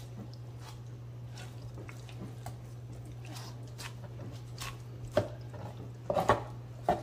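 Knife cutting through a raw chicken carcass on a plastic cutting board: soft wet squishing and small clicks of the blade working through meat and skin, with a few sharper knocks in the last two seconds.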